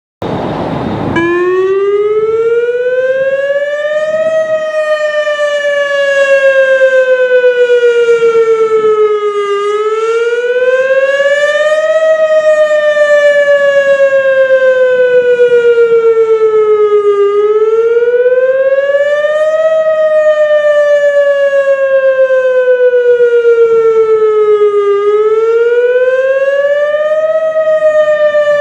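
Whelen WS-281 single-cell outdoor warning siren sounding the wail signal. It starts about a second in, then glides slowly up and down in pitch, rising for about two and a half seconds and falling for about five, about every eight seconds.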